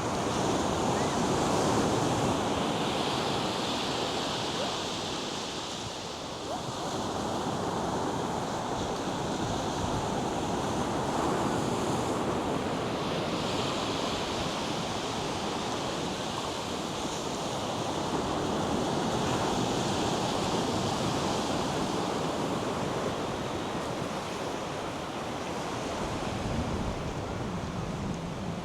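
North Sea surf breaking and washing up a sandy beach: a continuous hiss of waves that swells and eases over several seconds, with wind on the microphone.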